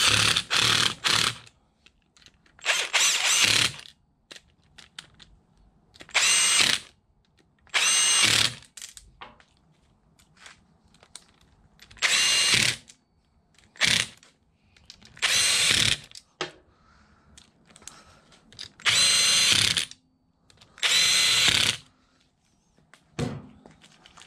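Cordless power driver spinning side-case cover bolts into an ATV engine's crankcase in short bursts of about a second, ten or so times with pauses between. Each burst carries a high motor whine.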